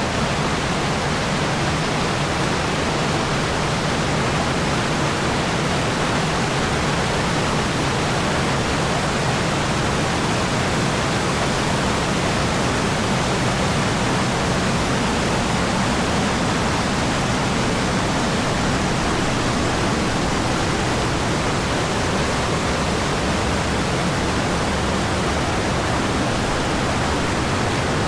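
Waterfall rushing: a loud, steady wash of falling water that does not change.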